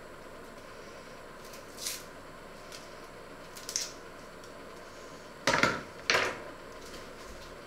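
Eggshell crackling faintly twice as eggs are peeled over an enamel bowl, then two louder knocks about five and a half seconds in as a peeled egg and a knife are set down on the counter.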